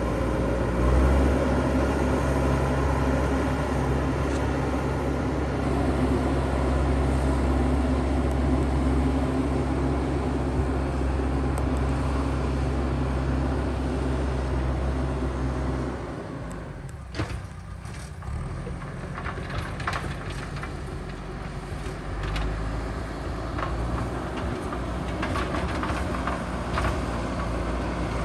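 JCB backhoe loader's diesel engine running steadily under load, dropping back about two-thirds of the way through. A series of sharp knocks and clatters follows, and then the engine picks up again near the end.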